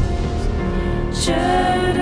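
Background music of slow, held tones, with a short hissing swell just over a second in.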